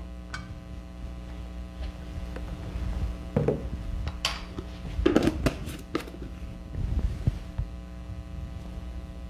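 Steady electrical mains hum with scattered knocks and clinks of cooking utensils and a pot being handled, busiest about four to six seconds in.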